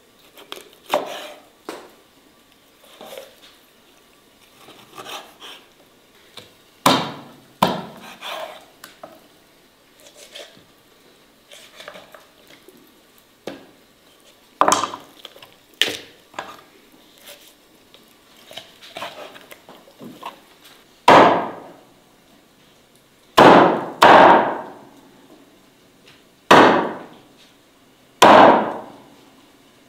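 Meat cleaver chopping raw chicken on a wooden chopping board. Lighter, irregular cuts and knocks come first, then about two-thirds of the way in come heavy single chops every couple of seconds, each a sharp loud knock that dies away quickly.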